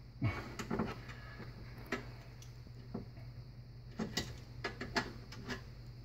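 Scattered small clicks and ticks from a brass compression nut and an adjustable wrench being handled and fitted onto a copper water supply line, with a cluster of clicks about four to five seconds in, over a low steady hum.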